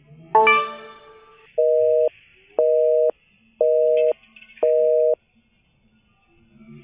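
Telephone busy signal: four identical half-second beeps of a steady two-note tone, half a second apart. It is preceded about half a second in by a single bright ringing note.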